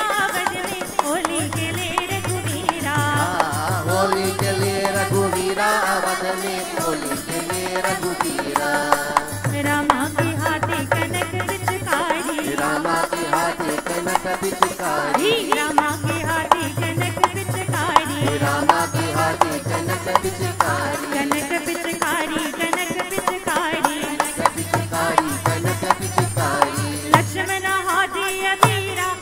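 Chowtal devotional folk singing: a group of voices sings over a dholak drum beat, with jingling hand cymbals.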